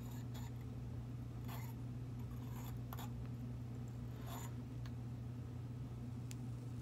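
A few short scrapes and clicks, about five in all, from small tools working on a rebuildable vape atomizer, over a steady low electrical hum.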